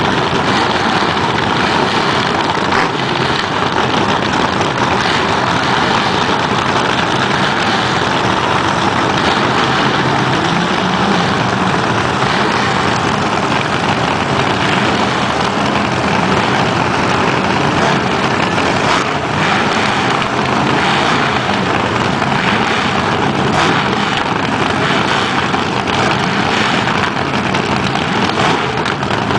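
Vintage front-engine dragster engines running on nitro at a steady idle, the loud uneven 'cackle' of a Cackle-Fest.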